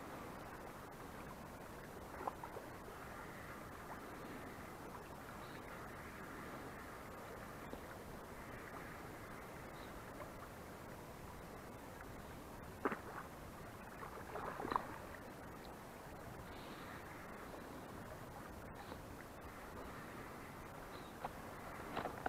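Steady, fairly quiet rush of flowing river water, with a few short knocks, the loudest about thirteen and fifteen seconds in.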